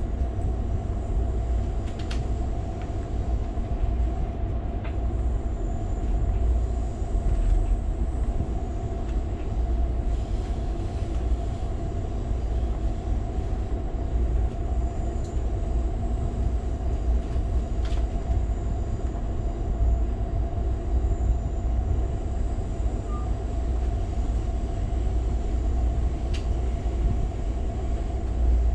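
Ride noise inside a moving Amtrak California Zephyr passenger car: a steady low rumble of wheels on the track with a constant hum over it, and a few faint clicks now and then.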